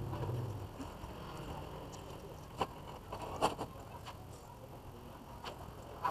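Gloved hands handling plastic conduit and cables: faint rustling with a few short, sharp clicks, the loudest about two and a half and three and a half seconds in.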